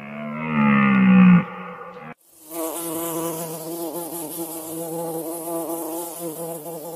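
An insect buzzing steadily, its wingbeat tone wavering slightly, starting about two seconds in and cutting off suddenly near the end. Before it comes a low animal call that falls in pitch for about a second and a half, like a cow's moo.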